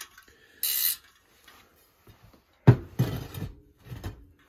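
Bicycle wheels being handled and moved: a brief hiss under a second in, then a sharp knock and clatter a little over halfway through, the loudest sound, trailing off into lighter knocks.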